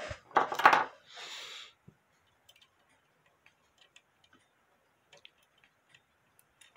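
Handling noise: a loud rustle with a knock about half a second in as the camera is jostled, then scattered faint clicks of small metal parts as the crutch piece is worked out of a brass clock movement.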